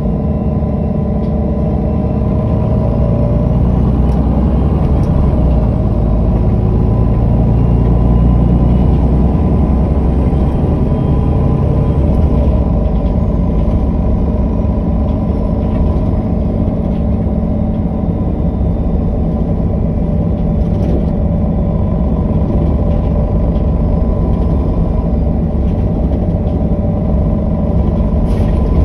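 MAN NG313 articulated bus's six-cylinder diesel engine running steadily, with a thin high whine over the engine note. The sound swells slightly about eight seconds in, then settles.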